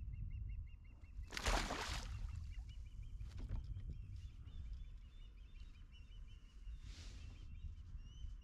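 A northern pike released over the side of a kayak, landing in the water with a brief splash about a second and a half in, with a second, softer rush of noise about seven seconds in. Throughout, a songbird sings a steady series of short repeated high notes over a low rumble.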